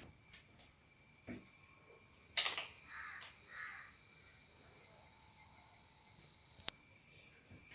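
Battery-powered electric buzzer of a homemade door alarm sounding one steady, high-pitched tone for about four seconds, starting suddenly a couple of seconds in and cutting off sharply. It is the alarm going off because the door has been opened.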